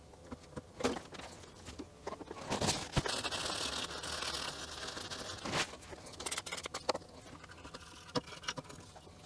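Faint rubbing and rustling of a cloth and cotton swabs wiping a floppy drive circuit board, with scattered small clicks of handling. The rubbing is steadiest from about two and a half to five and a half seconds in.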